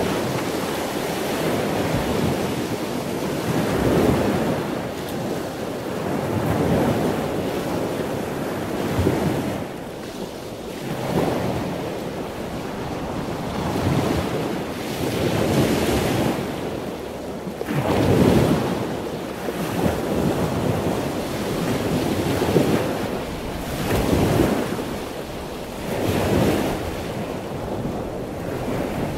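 Heavy storm surf breaking and rushing, with strong wind buffeting the microphone. The noise swells and falls every few seconds as waves come in.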